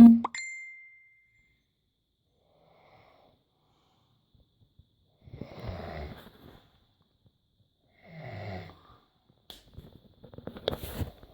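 A sleeping person snoring: a loud snore cuts off just at the start, followed by two rattling snores a little over two seconds apart. Near the end come a few seconds of clicks and rustling.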